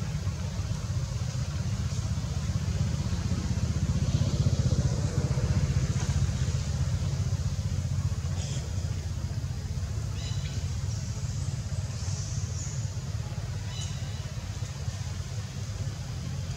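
Steady low rumble of a motor vehicle engine running, swelling a little about four to six seconds in, with a few short high chirps in the second half.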